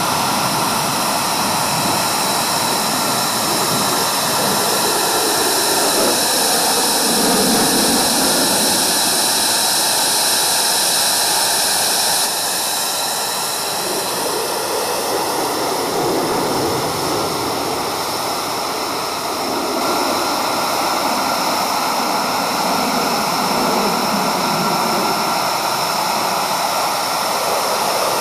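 Lockheed Martin F-22 Raptor's twin Pratt & Whitney F119 afterburning turbofans running loud and steady as the jet flies overhead, a continuous roar with a slowly sweeping, whooshing shift in its tone as the aircraft moves across the sky.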